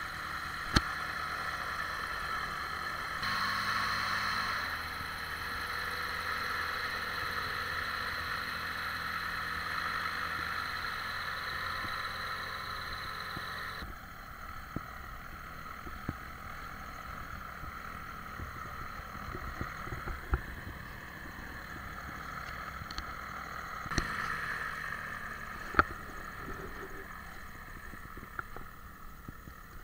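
Ultralight airplane's piston engine and propeller running at taxi power, a steady drone. It swells briefly a few seconds in and settles lower about halfway through, with a few sharp clicks over it.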